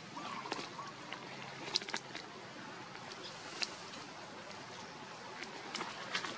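Macaques moving about on a leaf-littered forest floor and a sapling: scattered sharp clicks and rustles over a steady outdoor background, with a faint short squeak near the start.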